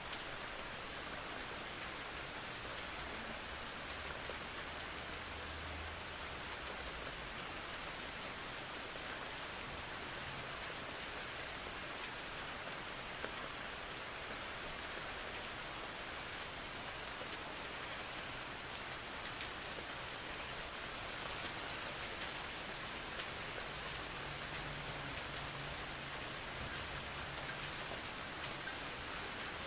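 Steady, even rain falling and pattering on surfaces, with occasional sharp drop ticks. A faint low rumble of distant thunder comes in a few seconds in and again near the end.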